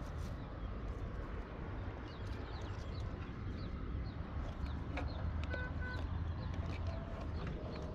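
Birds chirping over a steady low rumble, with a few light clicks and a brief two-note call a little past halfway.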